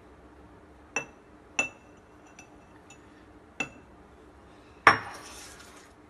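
Small stainless steel bowl clinking against a mug as powdered sugar is tipped in: a few sharp ringing clinks, then a louder knock near the end followed by about a second of soft hiss.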